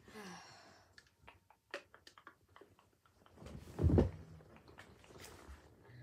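Handling and movement noise close to a recording phone: scattered small clicks and knocks, then a louder rustle and thump about four seconds in as a child moves right up to the phone.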